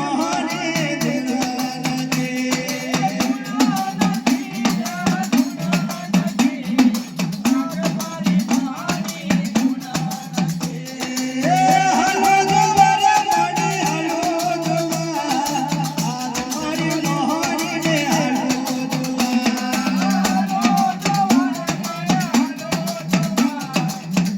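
Live Gujarati dakla devotional music: a steady, fast drum beat with a dense shaker-like rattle over it and a melody line that climbs higher about halfway through.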